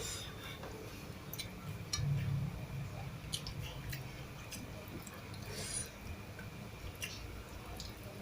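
Close-up eating sounds: a person chewing a mouthful of rice and sardines, with many short wet clicks and smacks scattered through it.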